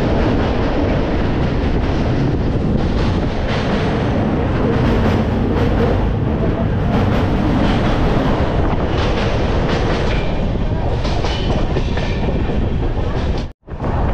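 Express passenger train running at speed, heard from aboard a sleeper-class coach: a steady loud rush of wheel and track noise with repeated knocks of the wheels over the rails. The sound cuts out abruptly for a moment near the end.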